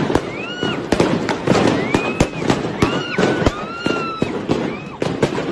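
Repeated gunshots, sharp cracks coming irregularly about one to two a second, with people shouting in between.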